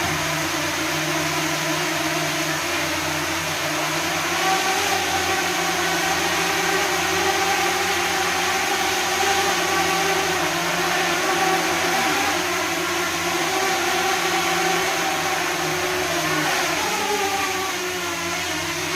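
Electric fans blowing with the whir of a DJI Mini 2's propellers, a steady hum of several held tones whose pitch wavers and glides briefly near the end as the motors change speed.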